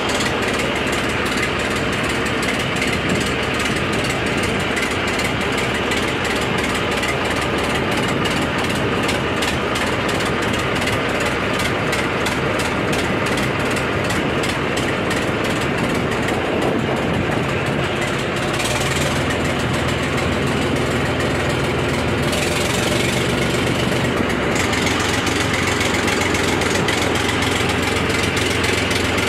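Small boat's engine running steadily under way with a fast, even beat; about two-thirds of the way through its note changes to a smoother, deeper hum.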